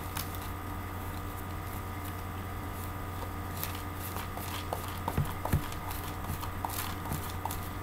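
Quiet rustling and a few light taps of handling, with two sharper taps about five seconds in, over a steady low hum.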